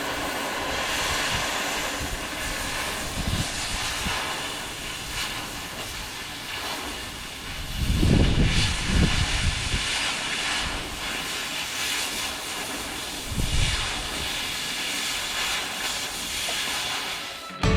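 Metal being cut off a skid steer roller's mounting bracket with a cutting tool: a steady rushing noise with heavier low surges about eight seconds in and again near fourteen seconds.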